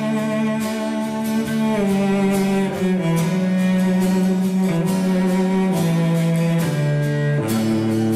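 Instrumental passage of a folk song: a cello plays a slow melody in long held low notes over a strummed acoustic guitar, from the song's studio recording.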